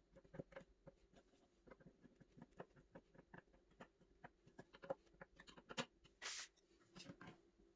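Faint, irregular small clicks and taps of hands handling the parts of a white flat-pack IKEA Brimnes drawer and its small hardware, with a short scrape about six seconds in.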